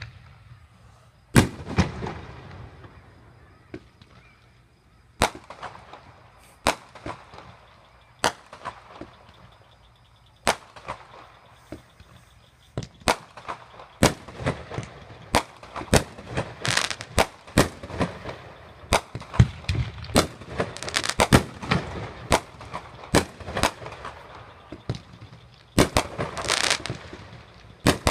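Fireworks going off: single bangs a few seconds apart, then from about halfway a rapid volley of bangs with crackling between them.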